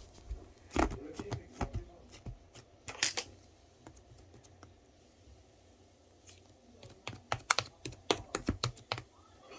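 Irregular runs of light clicks and taps: a few in the first three seconds, a pause of about three seconds, then a fast cluster near the end.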